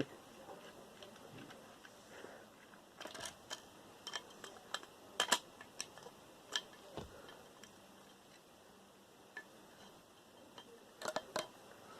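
Faint, scattered clicks and light taps of small computer parts and screws being handled during disassembly. They come in a cluster a few seconds in, then singly, then a pair near the end.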